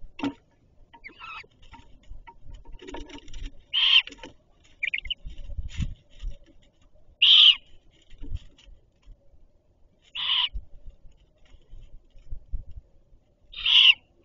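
Great horned owl chicks giving raspy food-begging screeches: four loud, short calls about three seconds apart, with fainter calls between them. Low bumps and rustling come from the adult moving on the nest.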